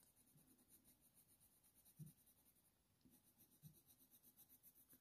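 Very faint scratching of a Polychromos colour pencil shading on hot-press watercolour paper, with two soft bumps, about two seconds in and near four seconds.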